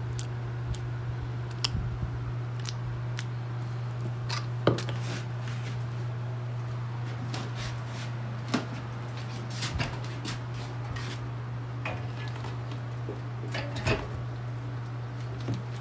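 Scattered clicks, taps and sharper knocks from working honeycomb frames: a decapping fork scraping off wax cappings, then frames being handled and set into a stainless-steel two-frame honey extractor. A steady low hum runs underneath.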